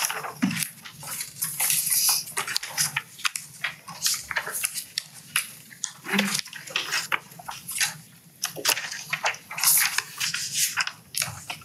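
Sheets of paper rustling and being shuffled close to the microphones, an irregular run of crackles with a few soft bumps.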